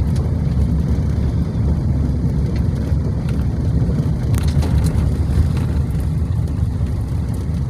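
Steady low rumble of road and engine noise inside a moving car, with a few faint clicks around the middle.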